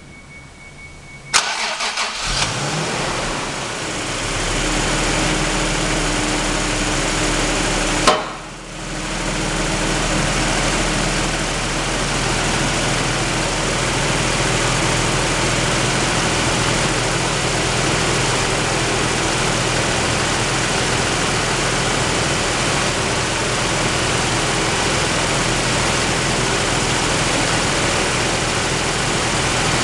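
Toyota Supra's 7M-GE 3.0-litre twin-cam inline-six starting up for the first time after an engine rebuild. It starts with a sharp click about a second and a half in and runs. Another click about eight seconds in brings a brief dip in loudness, and then it settles into a steady idle.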